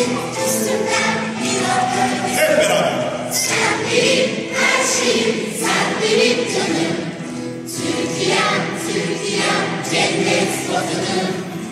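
Large children's choir singing a song in Turkish, accompanied by grand piano, without pause.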